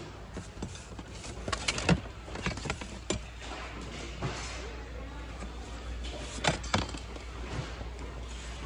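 Ceramic dishes and boxed goods being handled and shifted in a plastic bin: scattered sharp knocks and clinks of hard ware against plastic, loudest about two seconds in and again twice in quick succession about six and a half seconds in, over a steady background hum.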